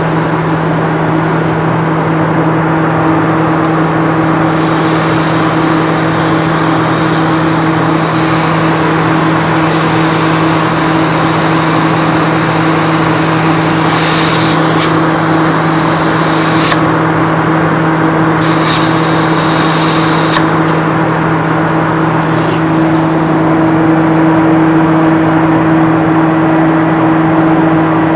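A machine running steadily with a constant low hum, with short bursts of high hissing about halfway through and again a few seconds later.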